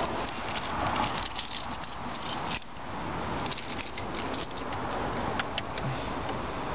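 Hand-handling noise from a car dashboard: rustling and rattling with small scattered clicks as wiring and plastic parts are worked around the pulled-out radio.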